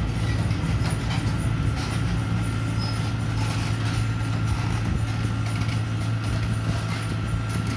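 Small crawler excavator's diesel engine running steadily, a low drone with a metallic clatter over it.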